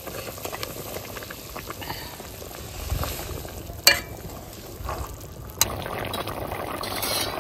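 Poppy-seed curry gravy boiling and bubbling in a metal wok as fried boiled eggs are added. A spatula knocks sharply against the wok about four seconds in and again a little later, and the bubbling then grows thicker.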